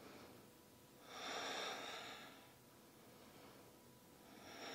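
A woman breathing audibly and slowly while holding a seated yoga pose: a soft breath about a second in, lasting about a second and a half, and another starting near the end.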